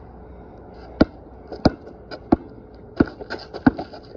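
Basketball being dribbled on a concrete court: about five sharp bounces at an even pace, roughly one every two-thirds of a second, starting about a second in, with a few fainter taps between them.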